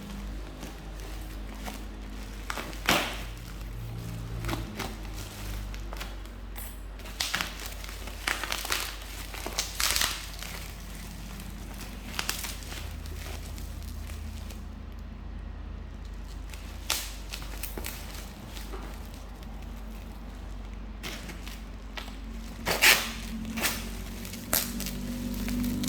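Handling noises from unboxing a phone: scattered clicks, taps and crinkling of packaging over a steady low hum.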